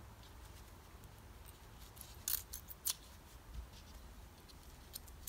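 Small metallic clicks of thin shims being slid back onto the shaft of a DVO Diamond fork's compression damper as the shim stack is rebuilt. There are a few light ticks, with two sharper clicks about two and three seconds in, over a faint low hum.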